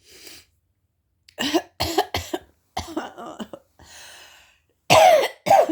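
A woman coughing: a faint breath, then a run of short coughs, with the two loudest coughs near the end.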